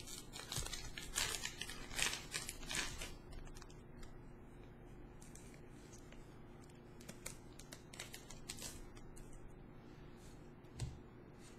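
Foil booster-pack wrapper crinkling and tearing as a pack is opened, loudest in the first three seconds, then quieter scattered crinkles and clicks of handling. A single soft thump near the end.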